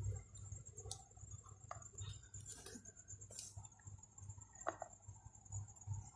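A night insect trilling steadily on one high pitch, faint, with a few scattered small clicks and taps.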